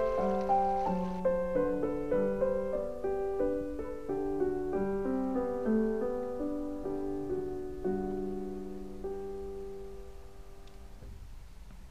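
Background piano music, a gentle melody of single notes that fades out gradually toward the end.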